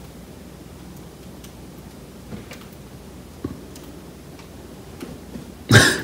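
Dog's claws clicking on a hardwood floor, a few scattered ticks as the English setter moves slowly after the laser dot. Near the end comes a sudden loud, short burst of noise, about a third of a second long.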